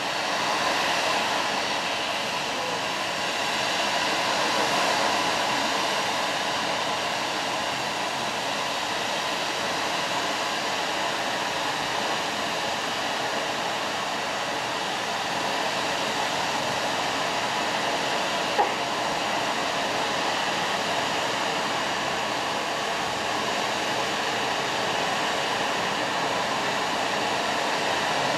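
Japanese ōzutsu (large tube firework) spewing a tall jet of sparks: a steady, loud, rushing hiss of burning gunpowder. A single sharp crack about two-thirds of the way through.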